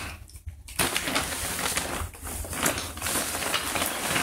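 Plastic sack rustling and crinkling as it is handled, with pieces of moose antler shifting inside it.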